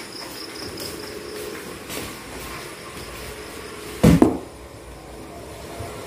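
A single loud, short thump about four seconds in, over faint steady background noise with a few light clicks and a brief faint high chirping in the first second.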